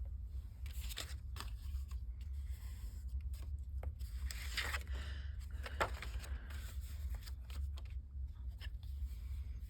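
Paper and cardstock being handled and positioned by hand: light rustles, scrapes and small taps, loudest about halfway through, over a steady low hum.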